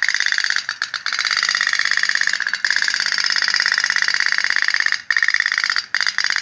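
Candle-powered pop-pop toy boat running: its little tin boiler puts out a fast, steady putt-putt of more than ten pops a second, faltering briefly a few times.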